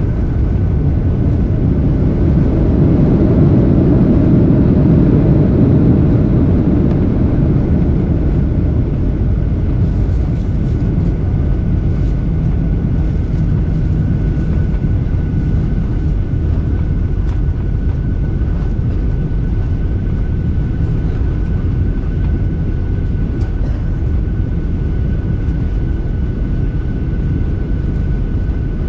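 Steady rumble of a Boeing 737-800's jet engines and airflow heard inside the passenger cabin during landing. The rumble swells louder a few seconds in, then settles, with a faint steady whine throughout.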